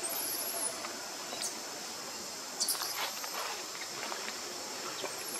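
Forest ambience: a steady high insect drone with a few short high chirps and scattered faint ticks and rustles.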